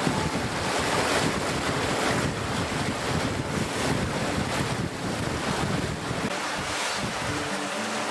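Wind buffeting the microphone over water rushing and churning in the wake of a sailing boat under way.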